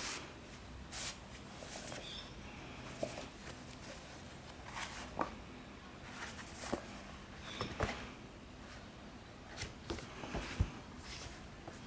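Paperback manga volumes being handled: irregular soft paper rustles and light taps as the books are moved and their pages turned.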